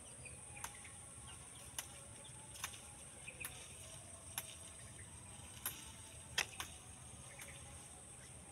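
Faint steady high-pitched insect chorus, with a string of sharp clicks or snaps at irregular intervals, about nine in all, the loudest a little past the middle.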